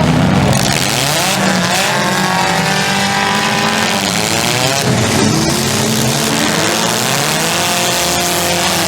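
Several demolition derby cars' engines revving hard at once, their pitches rising and falling over one another as the cars race the figure-8 track.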